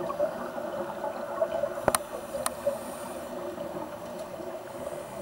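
Underwater ambience picked up by the camera: a steady watery hiss, with two sharp clicks about two seconds in.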